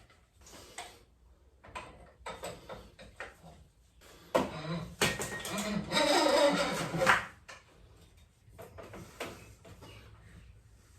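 Hand work on a motorcycle front fork leg: scattered scrapes and knocks, with a louder stretch of scraping from about four to seven seconds in.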